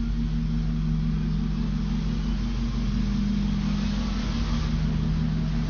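Steady low drone of a vehicle's engine and running noise, heard from inside its passenger cabin.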